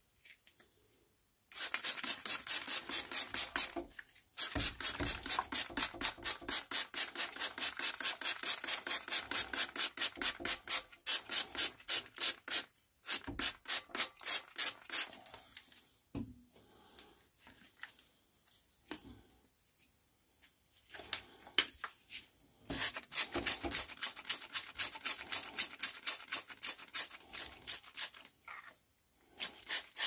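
Rapid back-and-forth scrubbing against the coiled heat exchanger of a Vaillant condensing gas boiler, about five scratchy strokes a second. The strokes come in long bouts with short pauses between them.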